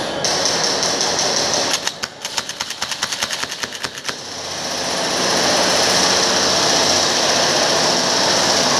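Airsoft gun firing on full auto: a rapid even rattle of shots about two seconds in, lasting a couple of seconds, followed by a loud steady noise.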